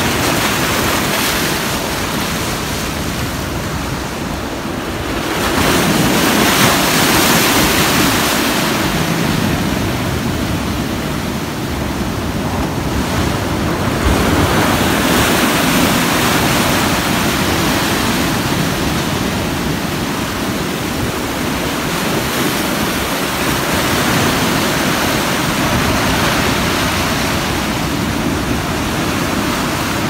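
Sea surf breaking and washing up a sandy beach: a continuous rush of foaming water that swells and eases as each wave breaks.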